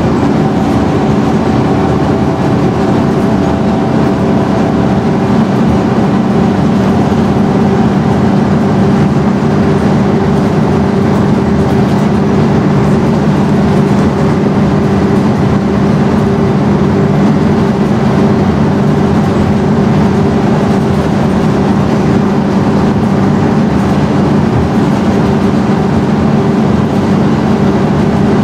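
Scania N113DRB double-decker bus's rear-mounted 11-litre six-cylinder diesel engine running with a steady, unchanging drone.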